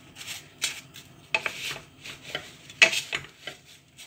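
Wooden spoon stirring diced apples and sugar in a stainless steel cocotte: repeated scraping strokes, with two sharper knocks of the spoon against the pot about one and a half and three seconds in.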